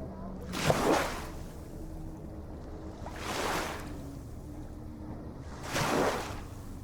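Ocean waves washing in, three surges about two and a half seconds apart, each swelling and fading.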